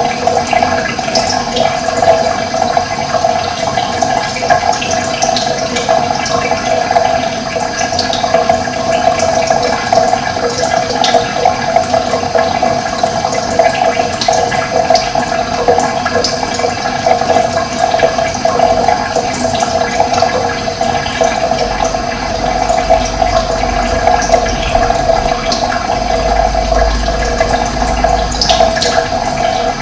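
Running water flowing steadily, with scattered short, high bird chirps over it.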